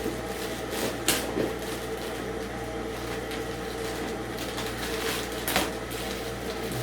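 Steady low machine hum, with two sharp clicks, one about a second in and one near the end.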